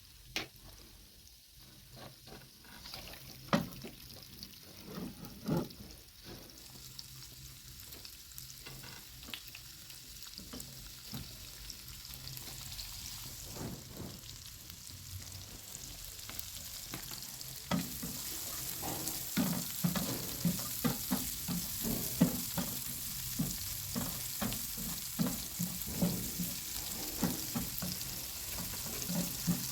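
Onions frying in hot oil in a pan, with a spoon stirring and knocking against the pan. The sizzle grows louder and the stirring busier about two-thirds of the way through.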